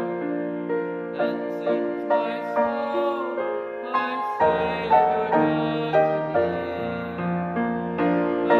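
Piano playing a slow piece of chords and melody, with a new note or chord struck about every half second.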